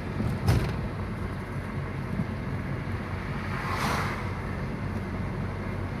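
Road noise inside a moving car: a steady low engine and tyre drone. There is a sharp thump about half a second in and a brief swell of rushing noise around four seconds in.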